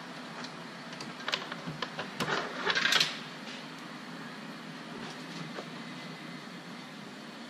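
Handling noise from wiring and cloth wiring tape: a few light clicks and crackles, then a short rasping burst near three seconds in, which is the loudest sound. A steady low background hum runs beneath it.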